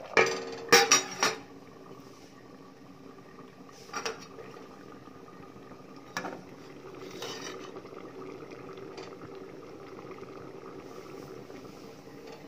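Stainless steel plate clattering against a steel cooking pan: a quick run of metal clinks in the first second and a half, then single knocks around four and six seconds in. A faint steady hum runs underneath.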